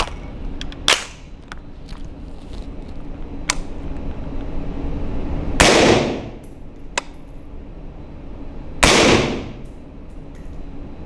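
Two suppressed shots from a 5.56 AR-15 rifle fitted with an Anechoic X30 titanium 30-cal suppressor, about three seconds apart. Each is a sharp crack with a short ringing tail from the range walls, and the shots read about 88 dB on the meter. A couple of light clicks come earlier, in the first few seconds.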